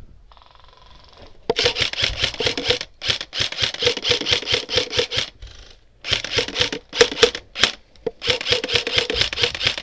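Airsoft gun firing in rapid full-auto bursts, about a dozen sharp shots a second, in several runs broken by short pauses, starting about a second and a half in.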